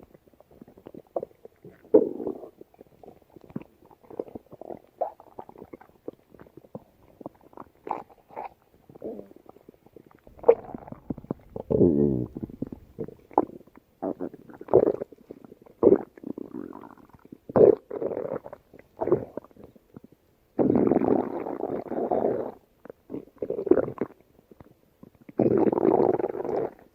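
A woman's stomach growling and gurgling: many short, irregular gurgles, with longer rumbling stretches about ten seconds in, around twenty seconds in and near the end.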